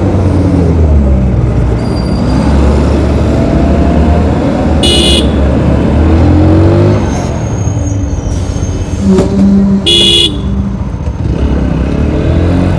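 Motorcycle engine of a TVS Apache RTR 160 4V running and revving up and down in slow stop-and-go traffic beside a bus, with engine drone all round. A vehicle horn honks briefly about five seconds in and again about ten seconds in.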